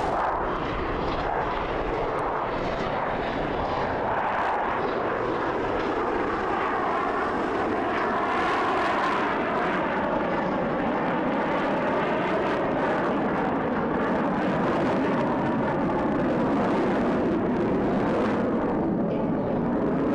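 Jet engine noise of a Thunderbirds F-16 Fighting Falcon flying past, loud and continuous, with a pitch that wavers up and down as the jet passes.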